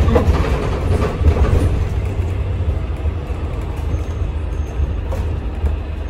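Upper-deck cabin noise of a Volvo B5L hybrid double-decker bus on the move: a steady low rumble with road noise and a few light clicks and rattles from the body.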